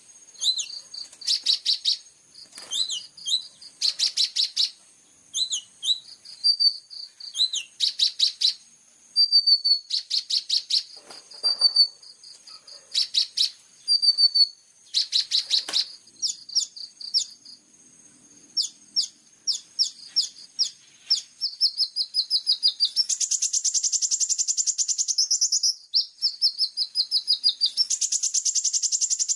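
Small songbird singing a high, fast chattering song: short bursts of rapid trills mixed with quick sliding whistled notes, then two long even trills near the end. It is a master recording of song used to train captive sunbirds.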